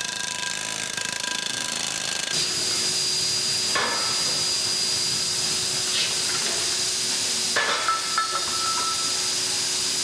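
Factory machine noise from stamping the markings into an aluminium scuba cylinder's neck: a steady mechanical hum and hiss that changes character a little over two seconds in. A few short, sharp metallic knocks come near four, six and eight seconds.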